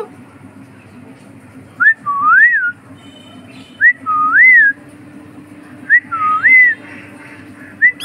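Clear two-part whistle, a short rising note followed by a longer rise-and-fall, repeated at an even pace about every two seconds.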